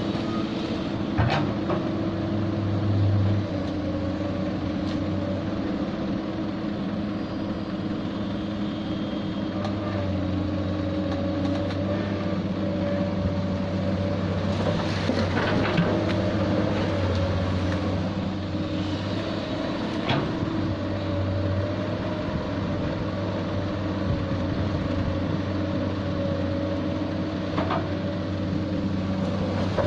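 Heavy diesel engine of an excavator running steadily, with a few short metallic knocks.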